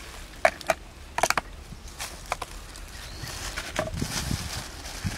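Plastic sauce container being handled and squeezed: a string of sharp clicks and crinkles over the first two and a half seconds, then softer rustling with a few dull knocks.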